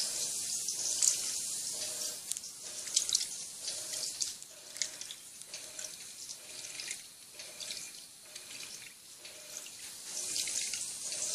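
Water splashing and running inside the tub of an Electrolux Turbo Economia 10 kg (LTD11) top-loading washing machine as it washes two blankets at the high water level. The splashing is quieter through the middle and picks up again near the end.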